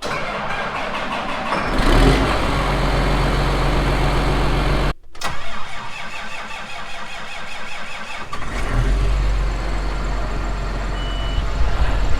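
A John Deere tractor's diesel engine being started with difficulty. The starter cranks for a couple of seconds before the engine catches and runs unevenly, then settles into a steady idle. This is a reluctant, hard start.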